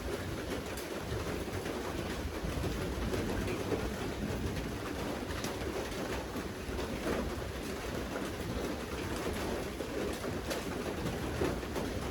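Steady rain falling, with scattered single drops ticking, and a bird cooing low in the background.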